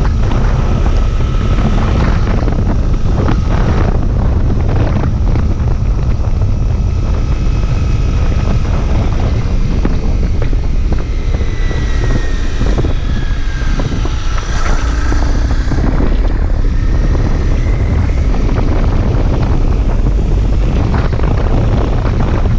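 Riding sound of a faired sport motorcycle: wind buffeting the microphone over the running engine. About halfway through, a higher whine slides up and down for a few seconds.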